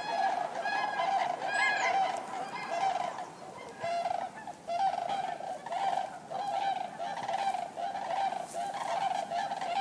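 Common cranes calling: many repeated, overlapping trumpeting calls from a flock, with a brief lull about four seconds in.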